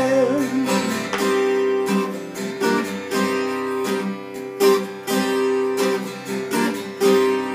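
Twelve-string acoustic guitar strummed in a steady chord rhythm, with a sung note trailing off just at the start.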